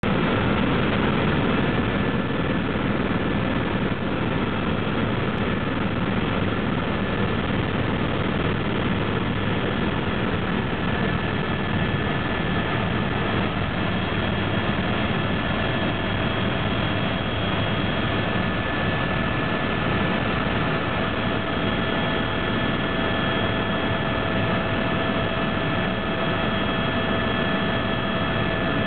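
Helicopter in flight heard from inside the cabin: a steady, unbroken drone of turbine and rotors with a constant high whine over it.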